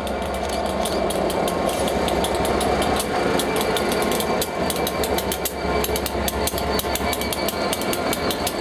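EWS Class 67 diesel locomotive 67022 passing close as a light engine, its two-stroke V12 engine running under a rapid, steady clatter of sharp clicks from its wheels on the track.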